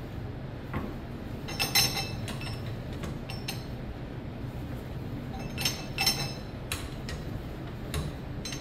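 Sharp metallic clinks and clicks from a long ratchet wrench being worked on a nut of a Volvo Penta DPS D1 outdrive input-shaft assembly held in a bench vise. A few scattered ringing clinks come over a low steady hum, the loudest about two seconds in and a pair around six seconds in.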